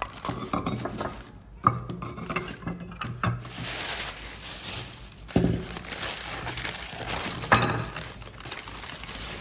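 Unglazed clay bowls clinking and knocking together as they are stacked, then a stretch of newspaper and plastic-bag rustling as another clay bowl is unwrapped, with a couple more knocks.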